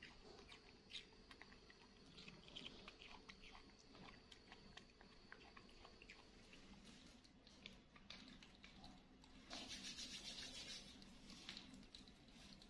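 Near silence: faint small clicks and smacks of a baby monkey eating melon slices, with a brief hiss lasting about a second roughly ten seconds in.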